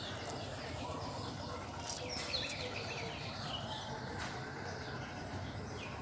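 Open-field ambience: a few short bird chirps over a steady background hiss.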